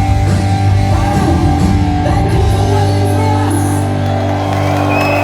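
Live punk rock band playing loud, with distorted electric guitar and bass holding chords over drums and cymbals, and shouted vocals; the song's closing moments.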